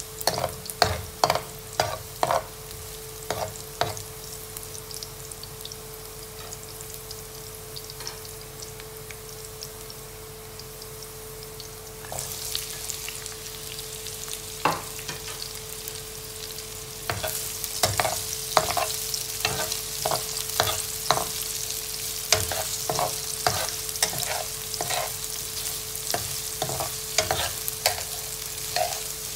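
Garlic sizzling in hot oil in a skillet, stirred with a spoon that clicks and scrapes against the pan. About twelve seconds in the sizzle grows louder as chopped onion goes in, and from about seventeen seconds it is louder still, with frequent stirring clicks.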